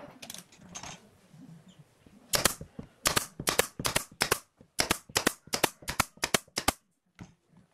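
Pneumatic nail gun firing into a pine board, a quick series of about twenty sharp shots over some four seconds, roughly four a second, starting a couple of seconds in.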